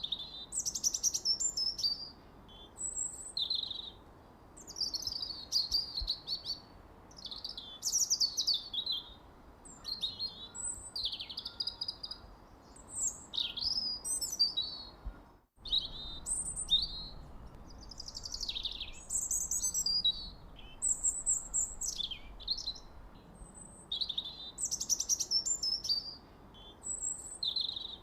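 Songbirds chirping and singing in quick, high, overlapping phrases with little pause between them. All sound cuts out for a moment about halfway through, then the chirping resumes.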